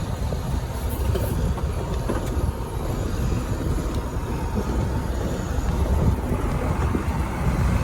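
Steady low rumble of a moving vehicle, with scattered light rattles and clicks, growing a little louder near the end.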